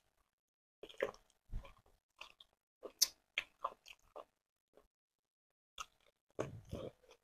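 Two people chewing and biting into sweet potato and stewed cow leg close to the microphone: a string of short, irregular mouth sounds, the longest and loudest near the end.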